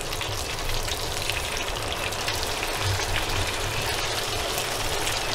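Battered potato patties (vada) frying in hot oil: a steady sizzle with many small crackles.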